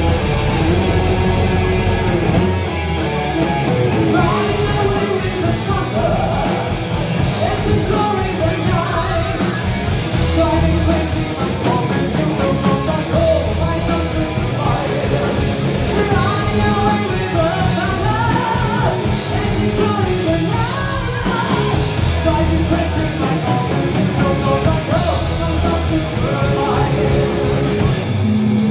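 Heavy metal band playing live: distorted electric guitars, bass guitar and drum kit at full volume.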